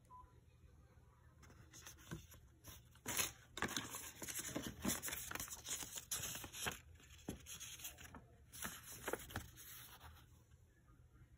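Paper receipts and tissue paper rustling and crinkling as they are handled, in a run of bursts that is busiest in the middle and dies away near the end.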